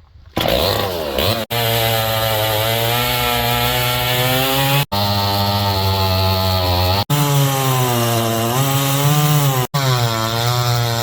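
Two-stroke chainsaw running under load while cutting wood, its engine note sagging and picking back up in the cut. It comes as several short clips joined with abrupt cuts.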